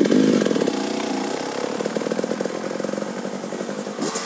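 2017 KTM EXC 300 TPI two-stroke single-cylinder engine running through its stock exhaust. The pitch wavers with light throttle in the first second or so, then the engine settles to a steadier idle.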